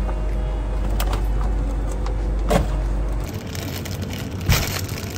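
Steady low hum of an open refrigerator while plastic pastry packaging is handled, with a few sharp plastic clicks and crinkles. The hum stops about three seconds in, and a plastic bag crinkles sharply near the end.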